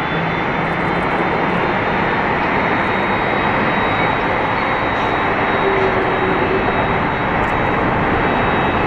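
Jet airliner engines running, a loud steady rushing noise with a faint high whine over it.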